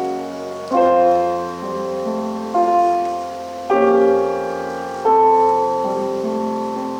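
Piano playing slow, sustained chords: four chords struck in turn, each ringing on and fading before the next.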